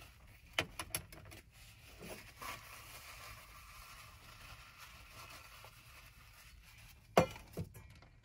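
Paper towel rubbing as cooking utensils are wiped clean, with a few light clicks of utensils being handled and one sharp knock about seven seconds in, the loudest sound.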